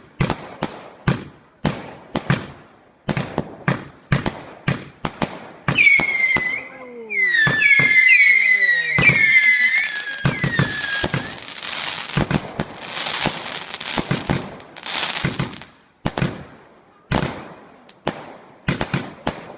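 Standard Fireworks Colossus firework going off in a rapid series of sharp bangs, about one or two a second. From about six to eleven seconds in, a cluster of shrill whistles glides in pitch. A few seconds of dense crackling hiss follow, then single bangs resume.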